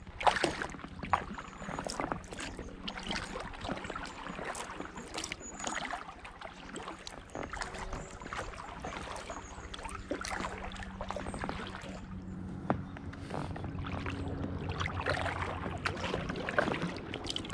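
Double-bladed kayak paddle dipping and splashing in rhythm, water dripping off the blades beside an inflatable kayak. A steady low drone of a distant helicopter runs underneath through most of it.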